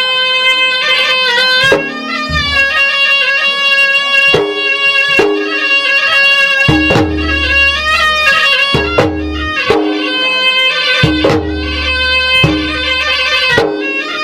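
Traditional Makassar gendang music from Maros. A pui-pui reed shawm plays a continuous, bending melody over sharp ganrang drum strokes and deep, resonant drum booms.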